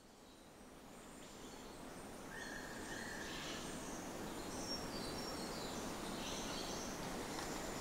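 Nature ambience fading in: a steady hiss of background noise with faint, high bird chirps and insect calls, including one short whistle about two and a half seconds in.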